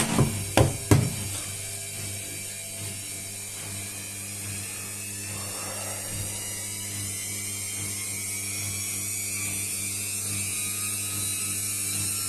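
Samsung washing machine on its spin cycle, running quietly on new drum bearings and seal: a steady motor hum under a high whine that slowly rises in pitch as the drum speeds up. A few sharp clicks in the first second.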